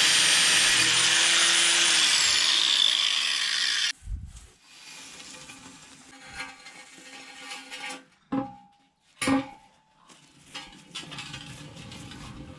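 Angle grinder cutting through a steel pipe: a loud, steady hiss with a high motor whine that dips about two seconds in, cutting off suddenly about four seconds in. After that come a few clanks of the cut steel pipe being handled, each ringing briefly.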